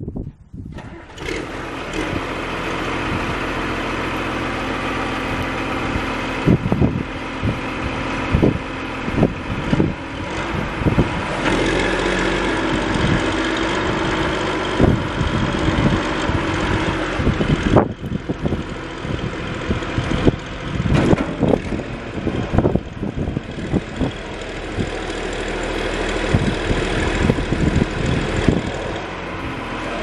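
John Deere 710B backhoe loader's diesel engine starting about a second in and then running steadily. The engine gets louder from about ten seconds in while the front loader arm is raised and the bucket tipped on the hydraulics. Scattered short knocks throughout.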